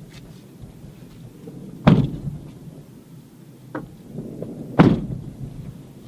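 Ocean surf: two heavy wave crashes about three seconds apart, with a smaller one between them, over a low steady wash of water.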